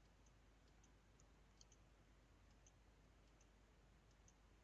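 Near silence with faint computer mouse clicks, about ten scattered through, as options are picked in a drop-down menu.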